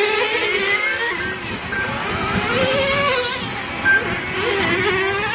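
Several 1:10 nitro RC touring cars' small glow-fuel engines running at high revs, their whines rising and falling in pitch as they accelerate and back off around the track. A few short high beeps sound among them.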